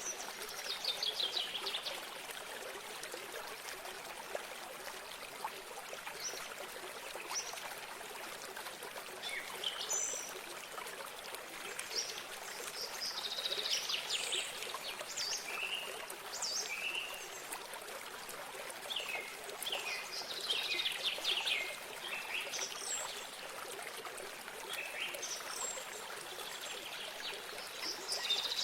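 Small songbirds calling and trilling in repeated short phrases over the steady trickle of a running stream.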